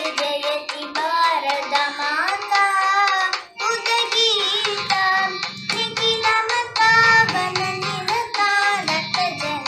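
A young girl singing a solo melody, holding notes with wavering, ornamented pitch. A low accompaniment comes in and out in the second half.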